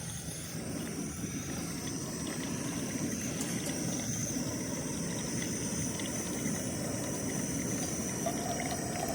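Coffee being made on a camp stove: a steady rushing hiss that grows slightly louder.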